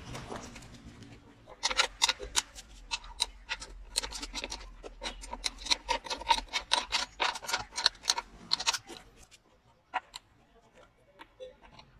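Socket ratchet wrench clicking in quick, uneven runs while tightening bolts on a lawn mower's steel wheel bracket. The clicking stops about nine seconds in, with one more click shortly after.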